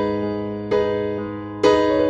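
Background music: an electric piano playing chords, a new chord struck about once a second and fading between strikes.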